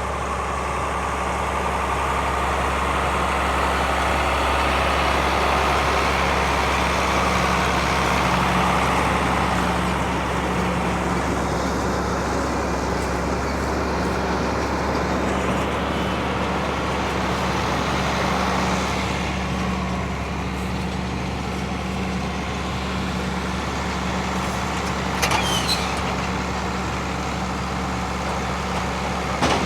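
Farm tractor's diesel engine running steadily under load in the hay field, swelling slightly over the first several seconds. A couple of brief clicks or rattles come about 25 seconds in and again near the end.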